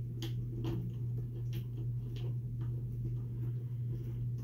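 Scattered light clicks and taps of small RC crawler parts and a hand tool being handled, coming thickly for the first couple of seconds and then sparser, over a steady low hum.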